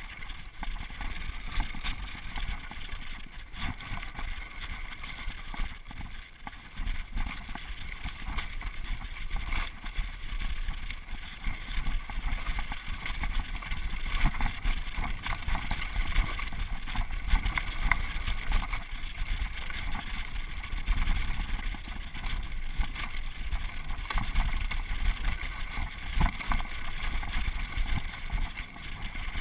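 Mountain bike descending a rocky dirt singletrack at speed: a steady rush of wind on the microphone over a low rumble, with the bike rattling and its tyres crunching over stones in rapid clicks and knocks.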